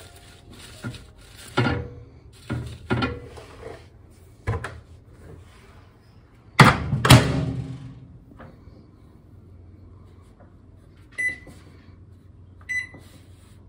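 A few short rustles and knocks as paper towel is pressed down inside a microwave, then the microwave door shut with a loud double clunk about six and a half seconds in. Near the end come two short keypad beeps as the cook time is entered.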